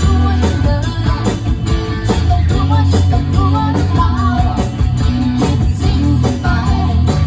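Live band playing guitar-led rock music at a sound check, with bass and drums keeping a steady beat and a guitar melody on top.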